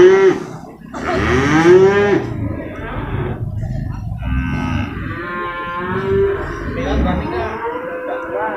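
Water buffalo calling in a market pen. One loud, drawn-out call rises and falls about a second in, and several softer calls follow in the second half.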